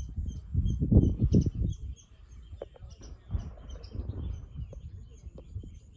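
A small bird chirping repeatedly in short, high, evenly spaced calls, over a low, gusty rumble that is loudest about a second in and fades after about two seconds.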